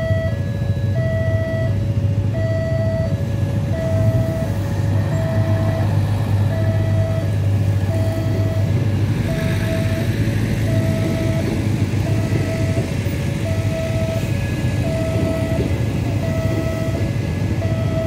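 Railway level-crossing warning alarm sounding a steady two-tone high-low signal, switching about every 0.7 s, while the Minangkabau Express diesel multiple unit runs across with a low steady rumble. A rush of wheel and rail noise swells about nine to ten seconds in.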